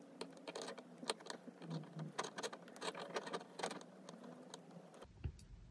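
Faint, irregular light clicks and scratches of metal double-pointed knitting needles against a safety pin as knitted stitches are slipped off the needle onto the pin.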